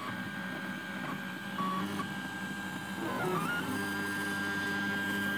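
3D printer stepper motors moving the print head, a steady whine that dips in pitch and comes back up as the head slows and reverses, once near the start and again a little past three seconds in.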